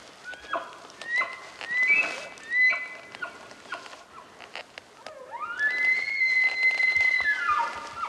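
Bull elk bugling: a few short high calls, then from about five seconds in a long bugle that climbs from low to a high whistle and holds, ending in a string of low grunts.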